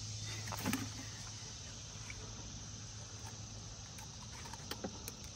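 Faint knocks and rustling as a landed striped bass is handled in a landing net on the boat deck, loudest about half a second in with a few more light clicks near the end, over a steady low hum.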